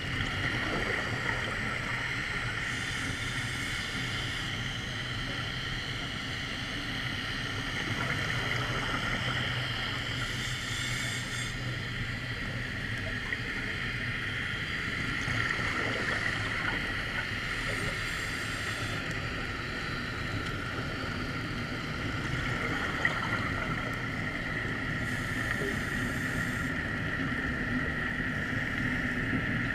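Steady underwater drone with a hiss, heard through the camera's housing, unchanging throughout, in the manner of distant boat engine noise carried through the water.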